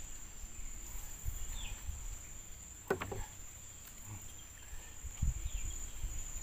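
A steady, high-pitched insect drone, with a few faint chirps. Soft low knocks and a sharp click about three seconds in come from gear being handled in a small boat.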